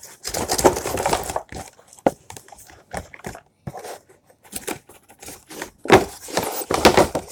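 Cardboard and plastic toy packaging being handled and pulled at: irregular bursts of rustling and tearing, with a few sharp clicks and knocks in between, as a piece is worked free of the box.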